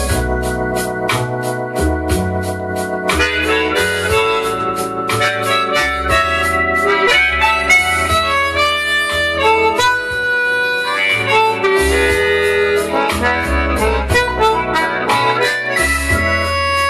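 Blues harmonica played cupped in the hands, coming in about three seconds in with bent and held notes. Underneath is a blues backing track with a steady drum beat, bass and organ.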